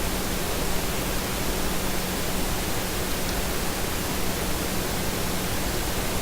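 Steady hiss of a noisy recording with a constant low hum, with no distinct events.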